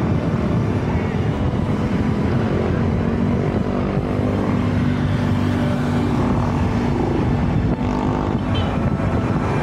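Wind buffeting the camera microphone as a road bike rolls at speed in traffic. A motor vehicle's engine drones steadily through the middle of the stretch.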